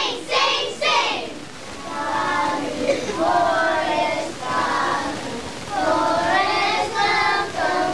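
A group of young children singing together, with long held notes. Loud children's voices come in the first second, before the singing starts.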